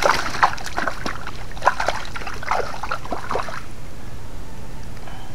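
Shallow creek water splashing and trickling in a run of irregular splashes as a just-caught fish is handled at the water's edge, stopping about three and a half seconds in.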